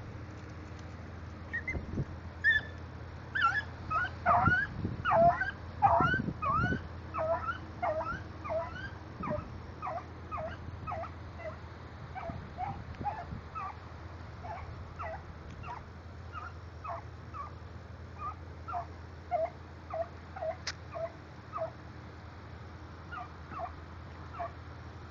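Dog giving short, high yips over and over, fast and loudest a few seconds in, then steadier at about one or two a second.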